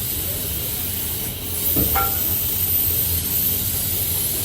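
Steady hiss and low rumble of workshop machinery, with a brief squeak about two seconds in.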